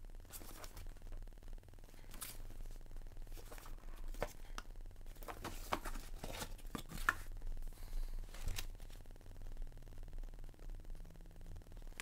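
Plastic shrink-wrap torn and pulled off a cardboard box by hand, in irregular crackling rips that are loudest a little past the middle, then the box opened with plastic packaging rustling.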